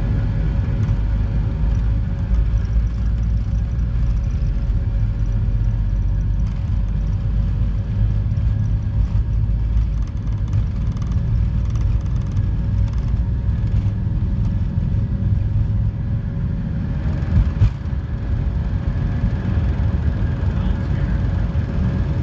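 Jet takeoff roll heard from inside the cabin of a McDonnell Douglas MD-90: its rear-mounted IAE V2500 turbofans at takeoff power give a steady heavy rumble with a droning whine, while the wheels rumble over the runway. A couple of sharp thumps come about three-quarters of the way through, shortly before liftoff.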